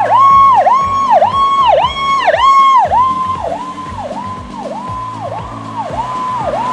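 Toy ambulance's electronic siren sounding a fast repeating swoop, a tone that dips and returns about twice a second. It is loud at first, fades after about three seconds, and stops at the very end, with background music underneath.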